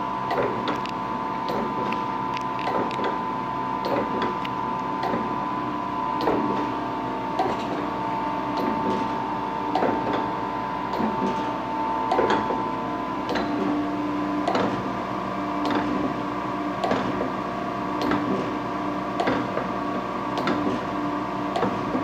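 Acer AGS 1230 AHD hydraulic surface grinder running under automatic feed: a steady whine from the spindle and hydraulic unit, with a sharp click about once a second as the table reverses.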